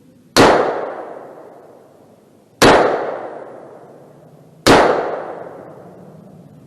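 Three single rifle shots about two seconds apart, each a sharp crack followed by a long fading echo.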